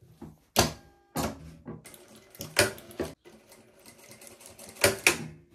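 Industrial straight-stitch sewing machine stitching in several short bursts, tacking down the ends of an elastic so it holds in place.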